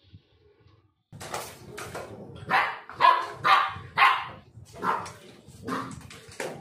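Black Labrador puppy barking in a run of short yaps, about two a second, starting about a second in.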